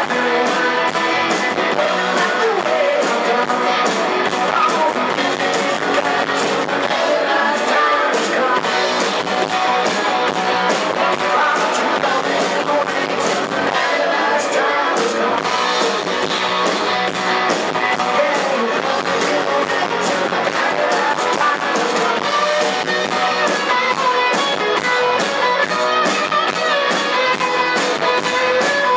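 Rock band playing live: electric guitars, bass guitar and drum kit at a steady driving beat, with singing. The sound is thin in the bass.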